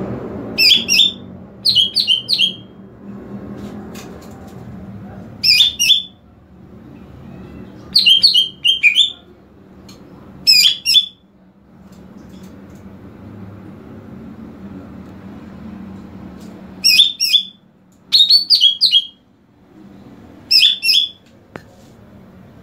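Greater green leafbird (cucak ijo) singing in short phrases of rapid, high chattering notes, about eight phrases with pauses between them. A low steady background noise runs underneath.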